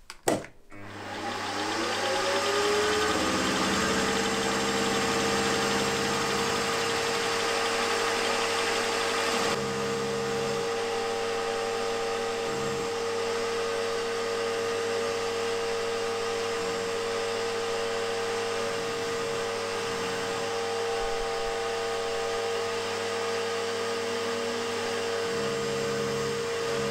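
Milling machine spindle motor switching on with a click and spinning up, its whine rising over the first two seconds, then running steadily while an 8 mm end mill cuts the radius on an aluminium conrod end.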